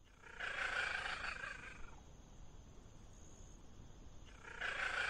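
A small cat calling twice: a drawn-out call of about a second and a half, then after a quieter pause a second similar call starting near the end.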